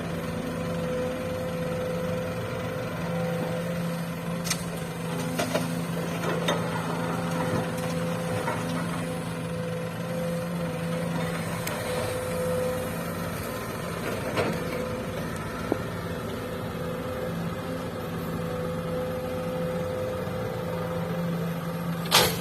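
Diesel engines of an excavator and a dump truck running steadily during loading, with scattered knocks and a sharp bang near the end.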